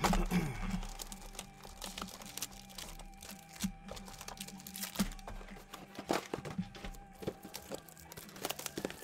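Hands handling and unwrapping Black Gold football card boxes: wrapping crinkling and tearing, with a run of small clicks and knocks of cardboard on the table, the loudest right at the start.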